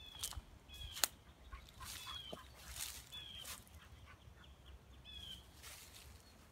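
Short, high, falling animal calls, five of them about a second apart, with crackling rustles and one sharp click about a second in.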